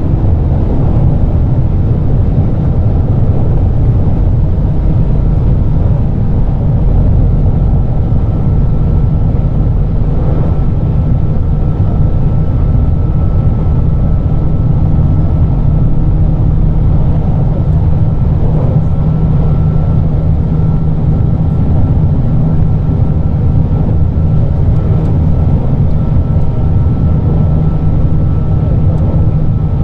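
JR Kyushu 817 series electric train running at a steady speed, heard from inside the car: a steady low rumble of the running gear with a faint high whine held throughout.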